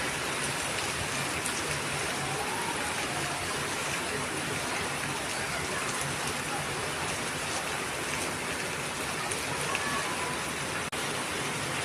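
Heavy rain falling steadily, a dense even hiss of rain on surfaces. There is a brief dropout of the sound near the end.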